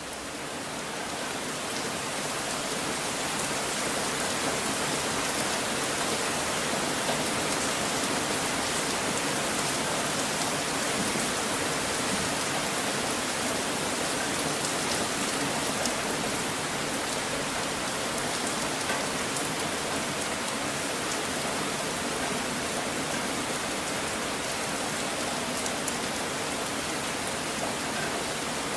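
Steady rain sound track, an even hiss with faint scattered drop ticks, rising over the first few seconds and then holding level. It serves as the masking track over quiet subliminal affirmations.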